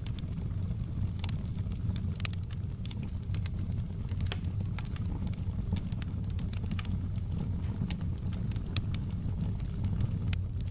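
Wood fire crackling, with frequent irregular sharp pops and snaps over a steady low rumble of flames.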